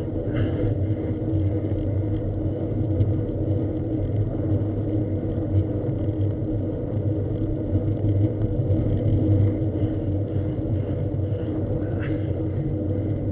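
A motor vehicle's engine running steadily at an even cruising speed, with low road and wind rumble.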